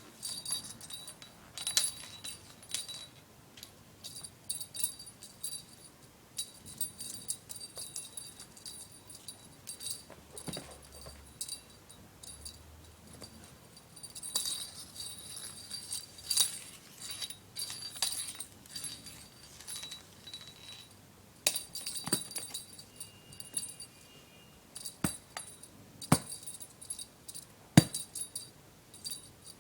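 A small bell jingling in short, irregular bursts, with a few sharp taps.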